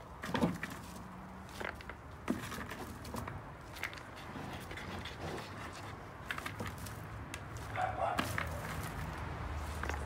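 Wood-chip potting medium being pressed and shifted by gloved hands in a plastic pot: irregular crunches, rustles and small clicks of the chips.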